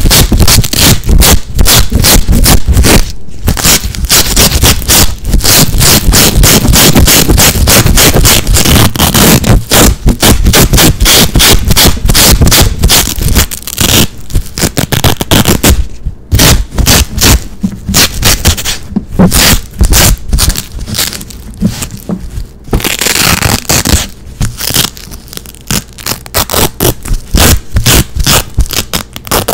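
Hook-and-loop (Velcro) straps being ripped apart over and over in fast pulls right at the microphone: a dense run of loud, scratchy rips with a few brief breaks.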